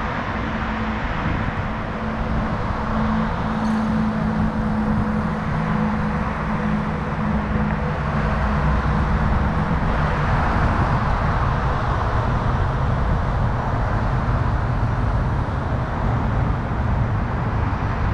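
Steady road traffic noise from cars passing on a multi-lane road, a continuous hum with a low drone.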